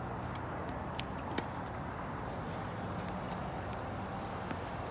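Steady low outdoor background rumble with a few faint clicks and one sharper knock about a second and a half in.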